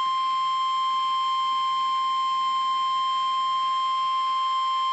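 NOAA Weather Radio 1050 Hz warning alarm tone: a single steady beep held without a break. It is the attention signal that comes before a new warning message is read.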